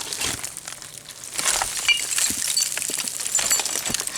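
Glass and debris clinking and scraping in a dump full of old bottles and shards, with many short clicks that come thicker after the first second or so.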